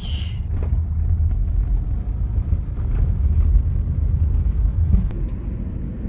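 Low, steady rumble of a car driving on a city street, heard from inside the cabin: engine and road noise.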